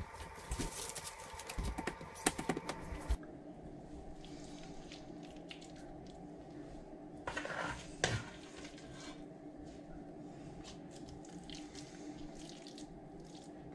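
Puff pastry sheet being unfolded on a metal baking tray, its paper liner crinkling in a run of small clicks for about three seconds. Then, over a faint steady hum, soft scraping and squishing as a spatula lays a thick, wet lentil filling onto the pastry, with a brief louder scrape about halfway through.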